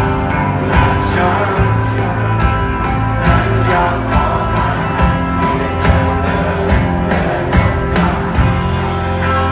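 Band music with a steady drum beat under sustained instrumental chords.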